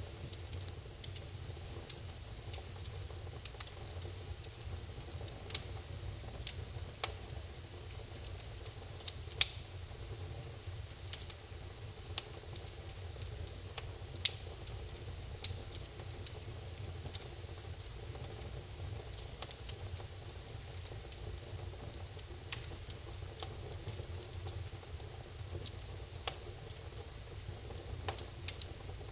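Wood fire in a fireplace crackling: irregular sharp pops and snaps over a steady low rumble of burning.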